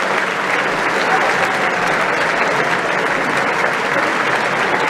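Large theatre audience applauding in a dense, steady ovation, with voices calling out among the clapping.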